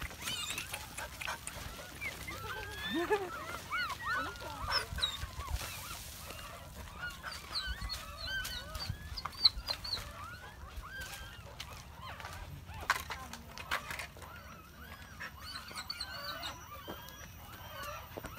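A litter of newborn puppies squealing and whimpering together, many short high cries that rise and fall, overlapping without a break. A few sharp knocks stand out, the loudest about halfway through.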